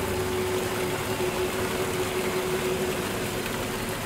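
Steady rushing of a waterfall, with a held low note under it that stops near the end.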